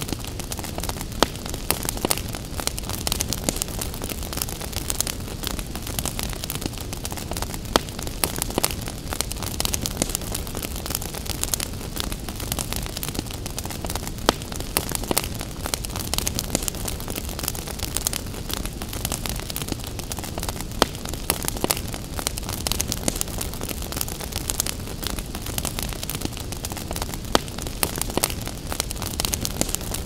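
Wood fire crackling, with many sharp pops and snaps, a few louder ones among them, over a steady low rush.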